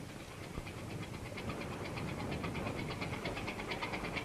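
A rhythmic mechanical chugging at about six beats a second that fades in about a second in, over a low rumble.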